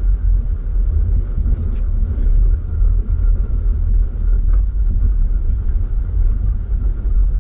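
Car driving, heard from inside the cabin: a steady deep rumble of engine and tyres on the road, with a few faint ticks.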